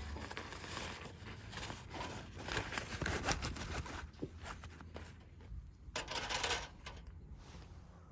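Irregular rustling and handling sounds with small taps, and a longer swishing rustle about six seconds in.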